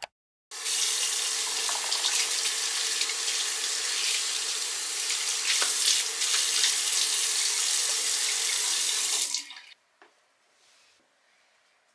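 Bathroom sink tap running, water splashing into cupped hands and the basin, a steady rush that stops abruptly about nine seconds in.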